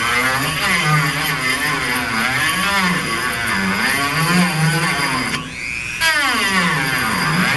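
Dremel rotary tool with a sanding drum grinding on copper refrigerant-line fittings, its whine rising and falling in pitch as the drum is pressed against the metal and eased off. The sound dips briefly about five and a half seconds in, then comes back.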